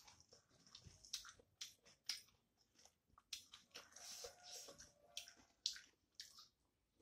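Close-miked chewing of a mouthful of rice and curry: an irregular run of short wet smacks and clicks from the mouth, busiest about four seconds in.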